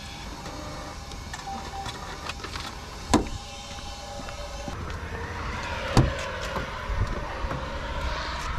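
Footsteps and handling noises outdoors, with a sharp knock about three seconds in and a louder thump about six seconds in as a truck cab door is opened. A machine hum grows from about halfway.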